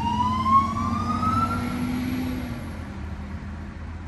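Fire engine siren wailing: one slow rising sweep that fades out about two seconds in, over a low engine rumble.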